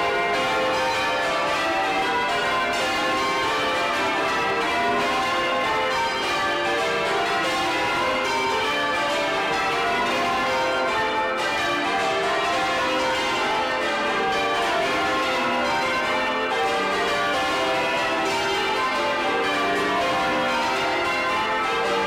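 Change ringing on Leeds Parish Church's ring of twelve bells, cast by Taylor in 1932, heard close up inside the bell chamber. The bells strike one after another in quick, unbroken succession, each note ringing on under the next.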